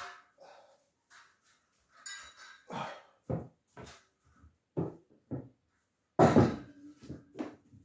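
A tool striking a hard wall of packed yellow clay (hwangto) and brick: a run of irregular knocks, about one every half second to a second, the loudest about six seconds in, with a brief scrape around two seconds in. The wall is resisting being broken out.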